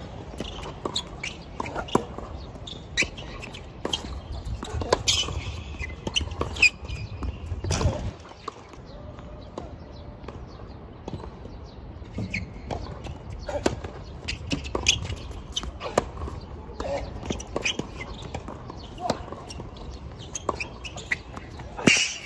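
Tennis ball being struck by rackets and bouncing on the court: a string of sharp, irregular knocks, with one louder hit near the end.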